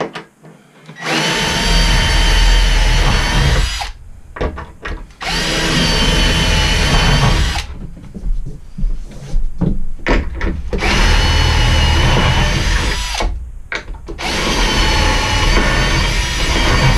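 Milwaukee cordless drill boring holes through plywood mounting blocks for through bolts. It runs in about four spells of two to three seconds each, with short pauses between them.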